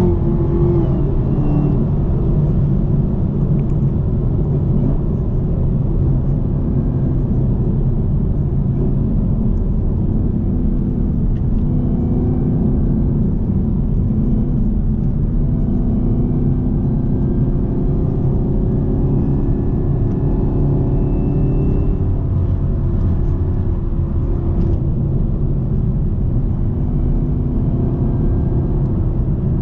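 2018 Camaro ZL1's supercharged 6.2-litre V8 running with a steady low rumble on the move, its pitch slowly rising through the middle and then settling.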